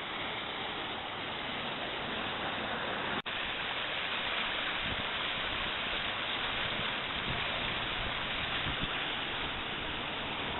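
Steady rushing of a swollen, choppy river, an even hiss of churning water, with a brief dropout in the sound about three seconds in.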